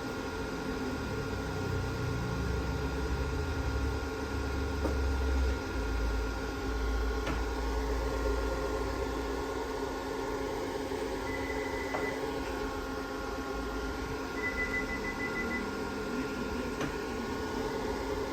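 Repaired Delta VFD-B inverter (VFD110B43A) running on test: a steady electrical whine and hum, with a low rumble that shifts in steps over the first several seconds. Two short high beeps sound later.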